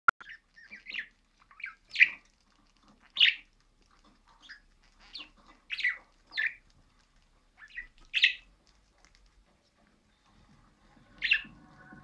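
Budgerigar chirping: about a dozen short, high calls, scattered irregularly with gaps between them.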